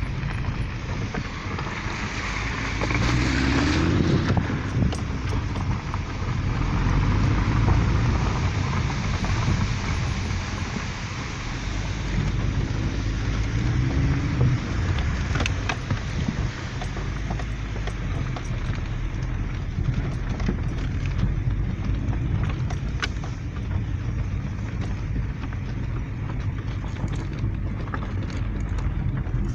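A car driving: steady engine and road rumble, with scattered faint clicks.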